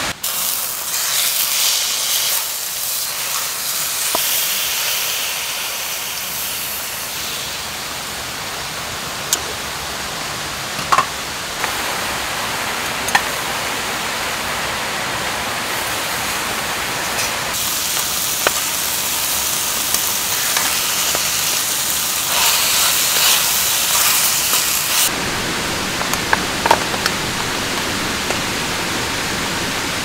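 Meat sizzling as it fries in a pan on a gas camp stove, a steady hiss that jumps in level a few times, with occasional sharp clicks of tongs against the pan.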